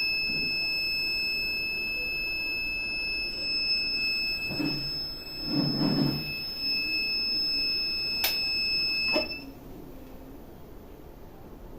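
Kent RO water purifier's buzzer sounding one continuous high-pitched long beep. This is the filter-change alert, which keeps sounding after new filters are fitted until the reset button is held. It cuts off about nine seconds in, just after a sharp click, with a few dull knocks earlier.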